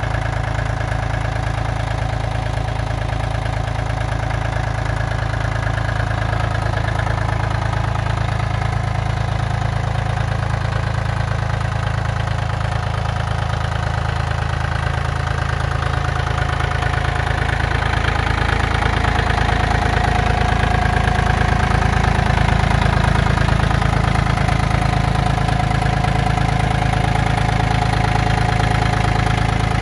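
Yanmar F195 compact tractor's diesel engine idling steadily, its low hum growing somewhat louder about two-thirds of the way through.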